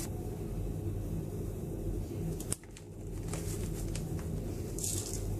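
Crushed biscuit crumbs and ground hazelnuts scattered by hand onto a cream-topped baking tray: faint rustles and a few light clicks, with a short rustle near the end, over a steady low hum.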